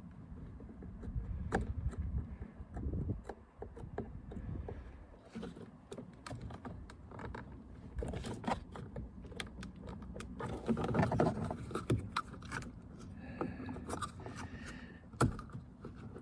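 Hands working a plastic connector and clip loose from the van door's mirror controller: irregular clicks, taps and scraping of hard plastic, busiest about two-thirds of the way through.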